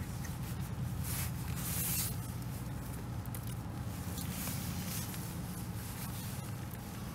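Wind rumbling steadily on the microphone, with short bursts of rustling hiss, the loudest about two seconds in.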